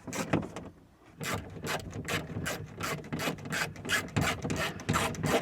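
Socket ratchet wrench clicking in quick, even strokes, about four a second, as a small bolt is turned; it starts about a second in.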